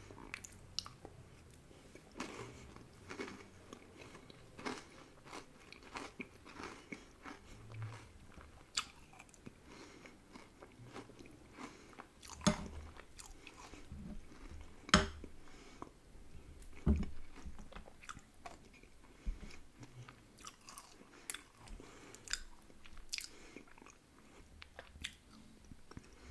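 Close-miked mouth sounds of eating ice cream with crunchy chocolate topping and Kinder Bueno White wafer: many soft chewing, biting and crunching clicks throughout. A metal spoon knocks sharply against the glass mug twice, about halfway through.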